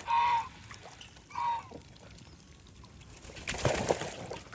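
A goose honks twice, short calls at the start and about a second and a half in. About three and a half seconds in comes a short burst of splashing water.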